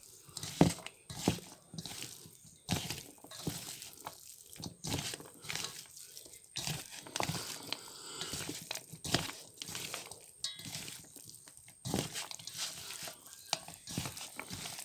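A hand squishing and mixing chopped raw pork with sliced onions and seasoning in a steel bowl: irregular wet squelches and crunchy clicks as the pieces are squeezed and knock against the metal.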